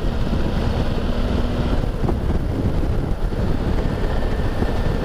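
Motorcycle being ridden at road speed: engine running steadily under heavy wind rush on the microphone, with a faint steady engine hum in the first couple of seconds.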